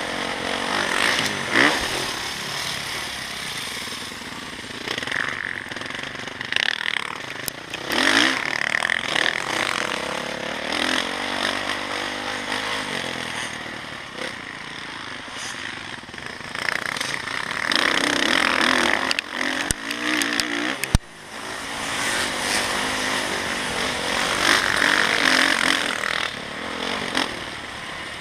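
Motocross dirt bike engines running hard around a dirt track, the revs rising and falling in repeated swells as the bikes accelerate and back off. A couple of sharp knocks come about twenty seconds in.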